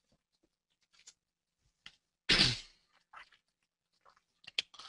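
A quiet pause broken by one short, loud thump-like noise at the presenter's microphone about two seconds in, with a few faint clicks near the end.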